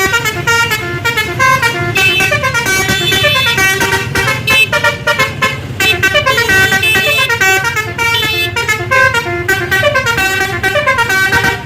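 Bus basuri telolet horn playing a fast tune of short notes that step up and down in pitch, loud, over the bus's engine running.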